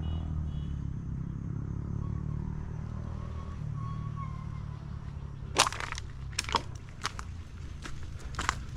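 Footsteps crunching on a rough road surface, starting a little past halfway as a run of sharp, irregular steps over a steady low rumble.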